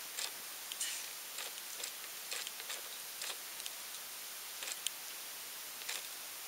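Irregular drips and taps of water leaking through the roof, about one or two a second, over a steady hiss.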